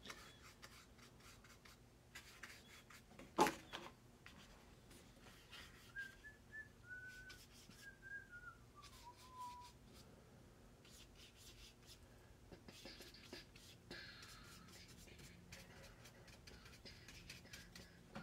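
A person whistling a few notes of a tune, stepping down in pitch, about six seconds in, over faint scratching of a paintbrush dabbing on watercolour paper. A single sharp tap about three seconds in is the loudest sound.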